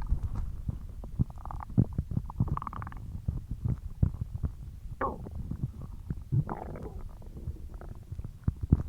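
Human stomach growling: a continuous run of low gurgling pops and bubbles, with a few higher drawn-out gurgles and one that slides down in pitch about five seconds in.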